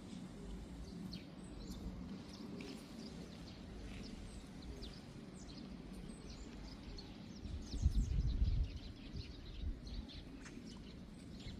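Small birds chirping in many short, high calls over a steady low background rush, with a brief low rumble about eight seconds in, the loudest moment.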